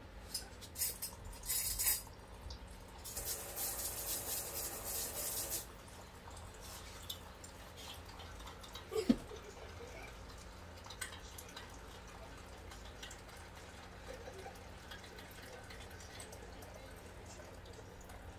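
A few light clicks, then liquid poured into a cup for about two and a half seconds. A single sharp clink sounds about nine seconds in, the loudest moment.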